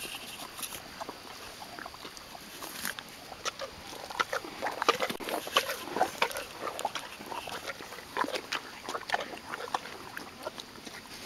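Donkey chewing and slurping apple close to the microphone: irregular wet crunching, smacking and sucking sounds, busiest in the middle.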